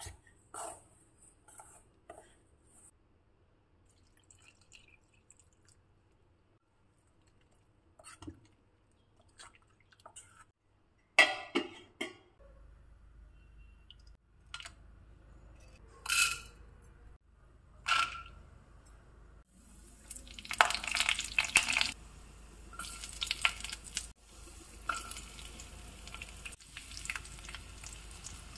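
A spoon stirring and scraping through thick semolina-and-curd batter in a stainless-steel bowl, then several sharp clanks of utensils on a stainless-steel kadai. From about two-thirds of the way in, oil sizzles steadily as peanuts, chana dal, dried red chillies and garlic fry in it.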